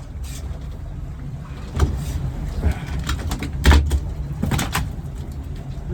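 Fishing boat's engine running with a steady low rumble, under a scatter of sharp knocks and thumps that start a couple of seconds in, the loudest about two-thirds of the way through.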